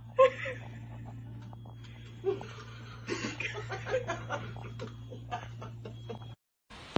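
Quiet chuckling and laughter from people in short broken bursts, over a steady low hum. The sound cuts off abruptly a little before the end.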